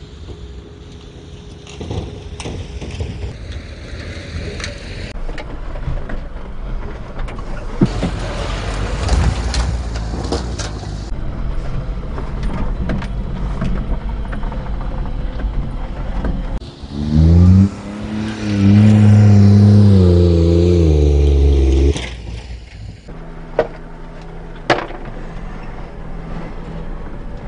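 Daihatsu Hijet Climber mini truck's 660cc engine driving through loose sand. About two-thirds of the way through, heard from inside the cab, it revs hard under load: its pitch climbs and holds for about five seconds, the loudest part. A few sharp knocks come through along the way.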